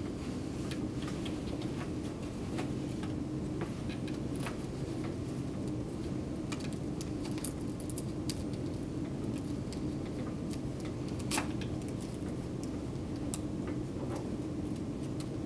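Scattered small plastic clicks and rattles as a commercial securing device is fastened around an infant endotracheal tube, over a steady low hum. One click about 11 seconds in is a little louder than the rest.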